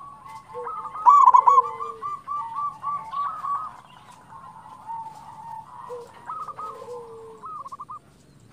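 Zebra dove (perkutut) singing: several phrases of quick, bubbling coos with a lower drawn-out note among them, the loudest phrase about a second in.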